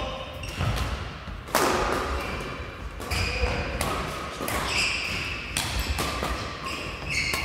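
Badminton rally: rackets strike the shuttlecock with sharp cracks about once every second or so, and sneakers squeak briefly on the court floor between the strokes.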